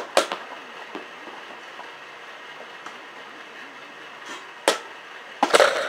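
A softball knocks off a bat on bunts: a sharp knock just after the start and another about four and a half seconds in. Near the end comes a louder, longer clatter.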